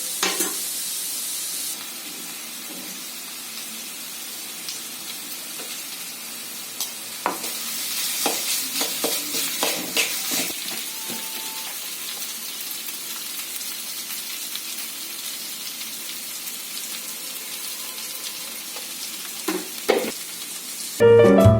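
Food sizzling as it fries in oil in a pan, a steady hiss, with scattered clicks and scrapes of a spatula stirring it in the middle and again near the end.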